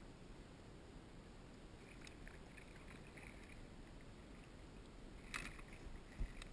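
Water lapping against a plastic fishing kayak's hull, with a low rumble of wind on the microphone. A brief crackling hiss comes about five seconds in, and a single low thump just after.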